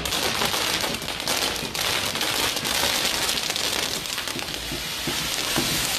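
Fireworks tower burning, with a dense, continuous crackle and hiss of spark fountains and small firecrackers.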